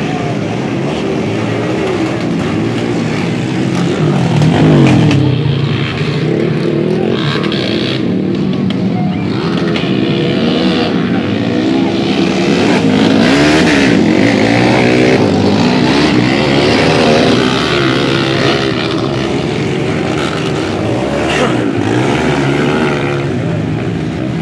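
Dirt bike engines revving as motocross bikes race along a muddy track, the pitch rising and falling with the throttle. Loudest about five seconds in and again through the middle, as bikes pass close by.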